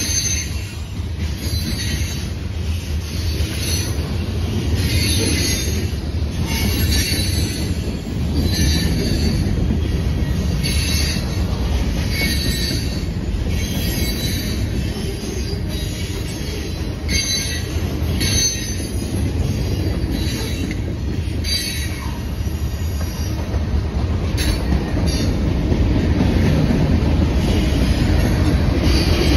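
Freight cars of a long Norfolk Southern manifest train rolling past: a steady low rumble with high, metallic wheel squeals recurring every second or two, growing a little louder near the end.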